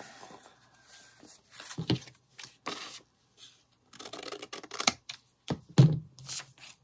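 Scissors snipping through a folded book page, mixed with paper rustling as the page is handled. The sounds come as a loose string of short snips and rustles, the sharpest about six seconds in.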